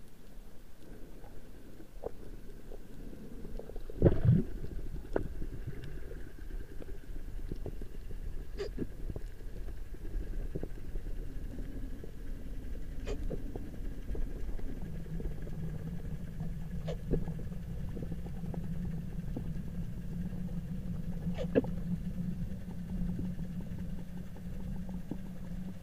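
Underwater ambience heard through a diving camera's housing: a low rumbling wash with scattered sharp clicks, a loud thump about four seconds in, and a steady low hum setting in just past halfway.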